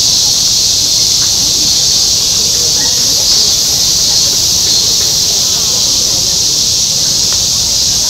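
A dense chorus of cicadas making a steady, unbroken high-pitched hiss, over a faint murmur of crowd chatter.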